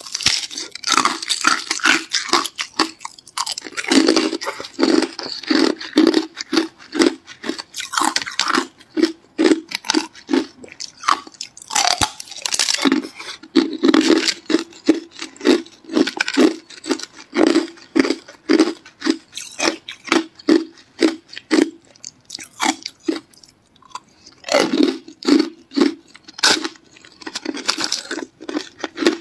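Hard clear ice being bitten and chewed in the mouth: loud crunching and cracking over a steady chewing rhythm of about three chews a second, with a short let-up about three-quarters through.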